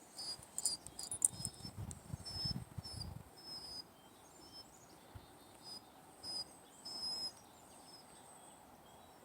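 Small birds chirping: short, high whistled notes repeating on and off. A low rumble runs under them for the first three seconds.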